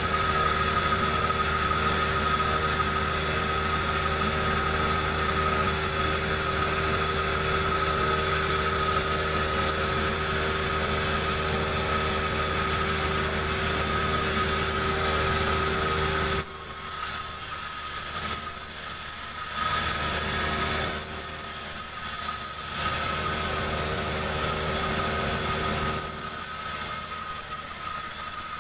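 Chainsaw engine running steadily at a constant speed while splitting a jengkol log. It is louder for the first 16 seconds or so, then quieter, with two short louder stretches.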